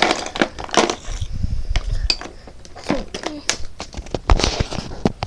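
A hand rummaging through a plastic tub packed with markers, crayons and pencils, which clatter and rattle against each other in quick, irregular knocks.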